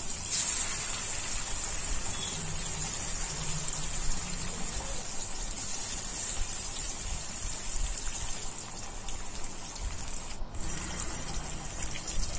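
Marinated rohu fish steaks frying in hot oil in a kadai: a steady sizzling hiss as more pieces are laid into the pan.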